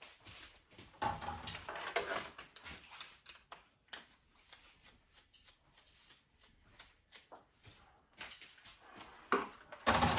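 Hands working on small parts: an irregular run of light clicks, knocks and scraping rustles, busiest about a second in and again just before the end.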